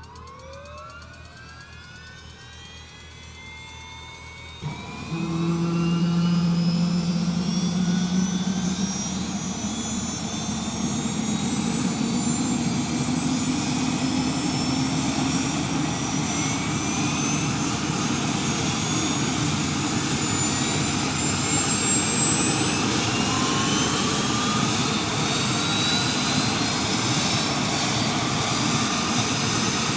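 Helicopter turbine engine starting up: a rising whine that jumps in loudness about four or five seconds in as the engine lights and runs up. It keeps climbing in pitch, then settles into a steady high whine near the end.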